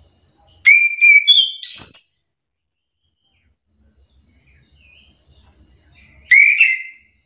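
Chestnut-capped thrush singing two loud whistled phrases. The first, under a second in, is a run of clear notes that step up in pitch. The second, shorter phrase comes near the end.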